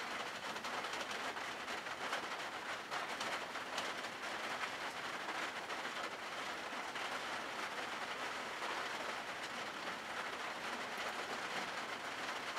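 Glass turntable plate turning on its roller ring under a model: a steady rolling rumble with faint rapid clicking.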